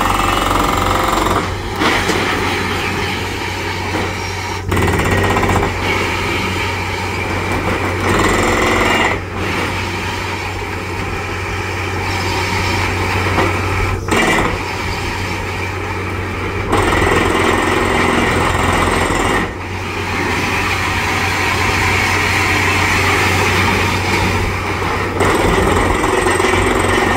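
Borewell drilling rig at work: its engine and air compressor running with the rapid pounding of the down-the-hole air hammer, the loudness stepping up and down every few seconds.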